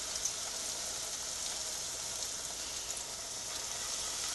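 Hot oil sizzling steadily around a stuffed bread roll deep-frying in a pot, a fine, even hiss with small crackles.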